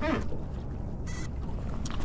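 Wind on the microphone and choppy water lapping at a small fishing boat, with a short falling squeak at the start, a brief buzz about a second in, and a sharp click near the end.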